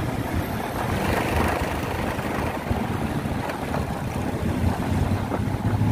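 Motorcycle engine running at a steady cruising speed, heard from the rider's seat with road and wind noise on the microphone.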